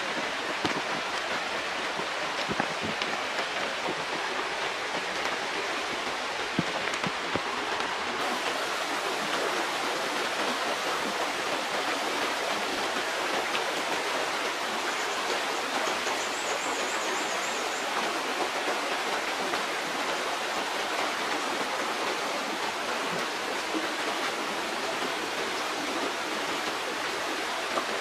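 Steady rushing water noise, falling rain and running stream water, with a few light knocks in the first seconds. The hiss grows brighter about eight seconds in.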